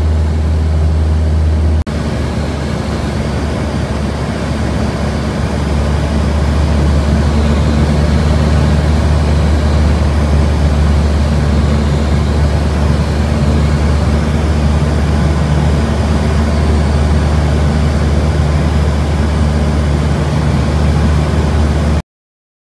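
Steady drone of a light single-engine propeller aircraft's engine and propeller, a deep hum with a rushing haze over it. The sound shifts abruptly about two seconds in and cuts off suddenly near the end.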